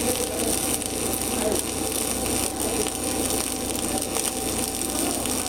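Steady crackle and hiss of a GMAW (MIG) welding arc in surface tension transfer mode, laying the root pass on a steel plate overhead.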